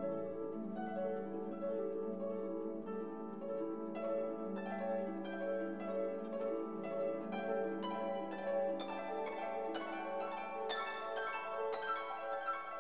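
Instrumental background music: quick plucked-string notes, harp-like, over a held low tone, growing busier from about four seconds in.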